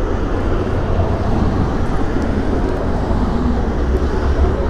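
Steady road traffic from a busy street close by: cars running past as a continuous rumble, heaviest in the low bass.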